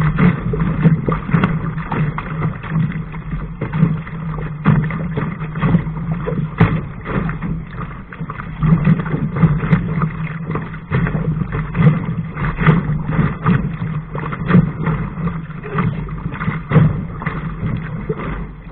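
Lake water rushing and splashing along the hull of a Laser sailing dinghy under way, with frequent short slaps of waves against the hull over a steady low rumble.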